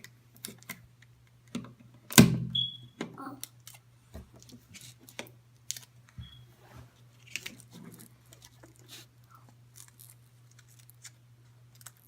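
Scattered clicks and taps of magnets and small parts being handled and glued onto the sides of a model track, with one louder knock about two seconds in. A faint steady low hum runs underneath.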